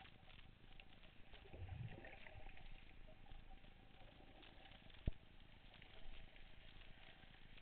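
Faint underwater ambience picked up through a camera's waterproof housing: a fine crackling hiss with a faint steady hum. A brief low rumble comes about two seconds in, and one sharp click about five seconds in.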